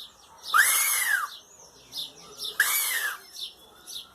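A person imitating a hawk's scream by drawing air past a small plastic ribbon held against the upper lip: two long calls that rise and then fall in pitch, with faint short chirps between and after them.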